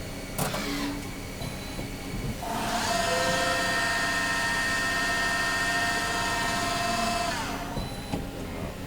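Hardinge Conquest T-42 CNC lathe spindle winding up to speed, running with a steady whine for about five seconds, then winding down. A click about half a second in.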